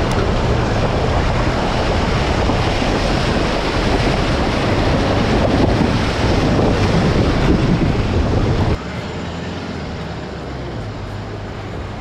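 Mahindra Bolero Camper pickup fording a shallow, rocky river, its front tyre throwing up a constant rush of splashing water over the engine running underneath. About nine seconds in, the splashing stops suddenly and only the quieter engine and tyre noise remain.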